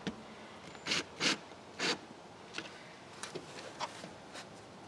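Cordless drill driving the handrail's top mounting screw home in three short raspy bursts, followed by lighter clicks and rubbing as the drill is lifted away and the rail is handled.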